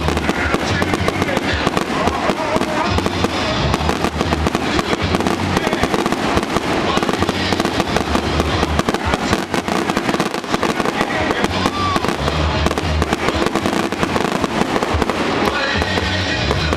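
Fireworks display: a dense, continuous barrage of bangs and crackling from many shells bursting in quick succession, steady and loud throughout.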